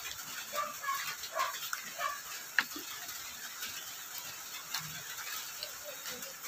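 A metal spoon scraping and clicking against bowls as thick fritter batter is stirred and scooped, with one sharp click about two and a half seconds in. Faint short animal calls sound in the background.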